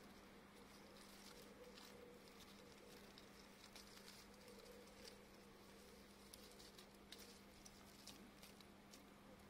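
Near silence: a grass stem moved over dry soil and grass gives faint, scattered rustles and ticks over a low steady hum.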